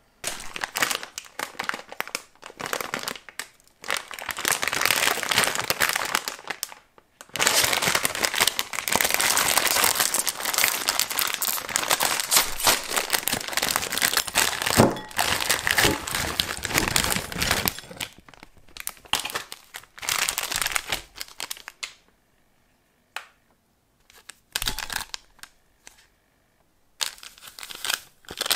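Plastic instant-noodle packaging crinkling and tearing as the bag is handled and ripped open by hand. Near the end come shorter, separate crinkles from small seasoning sachets being torn and emptied over the noodles.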